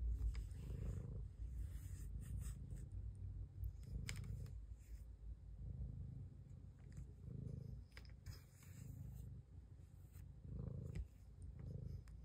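Domestic cat purring, a faint low rumble that swells and fades in slow pulses about once a second, with a few light clicks.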